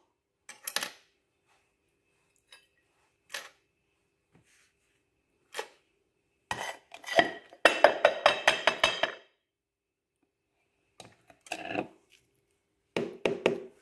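A utensil scraping and knocking a ground olive, cheese and ham mixture out of a food chopper bowl onto a ceramic plate: a few separate clinks, then a dense run of scrapes and taps about halfway through, and a few more near the end.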